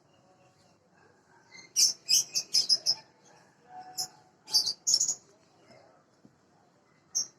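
Small birds chirping in short, high-pitched bursts, a quick run of chirps about two seconds in, more around four to five seconds, and a single one near the end.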